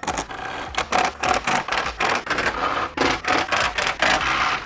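Cordless power driver tightening small screws into a plastic car bumper, with a quick, irregular run of clicks and scraping.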